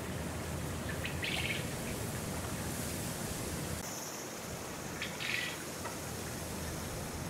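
Two short bird calls, one about a second in and one about five seconds in, over a steady low background rumble.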